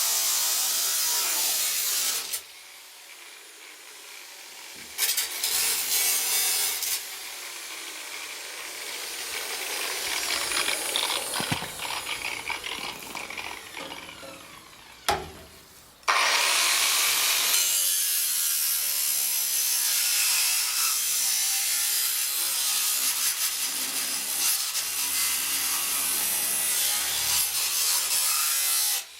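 9-inch angle grinder with an abrasive cutting wheel cutting through a car body's sheet steel. It cuts in several runs with quieter gaps, a sharp click comes about fifteen seconds in, and then there is one long steady cut.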